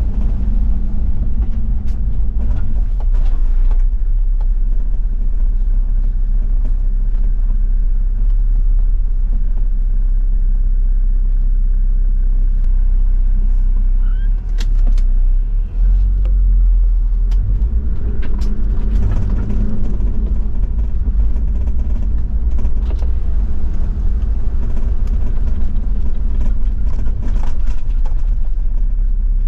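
Toyota Land Cruiser 70's diesel engine running while driving on an unpaved forest road, with scattered clicks and creaks from gravel and the body. The engine note dips and changes briefly about halfway through.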